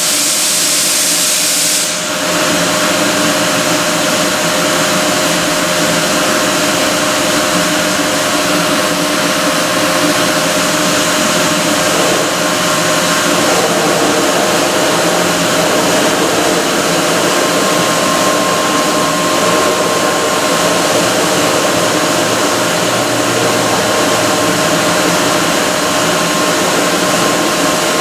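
Steady drone of industrial machinery running, with several held hum tones and a hiss over it; the hiss is louder for about the first two seconds.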